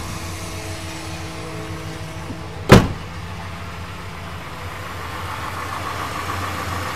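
Chrysler 440 cubic-inch RB wedge V8 idling steadily just after starting, running smooth with no ticks or knocks. About three seconds in, a single loud slam of the car door being shut.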